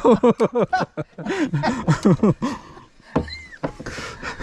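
Men talking in conversation, with a short high chirp that rises and falls about three seconds in.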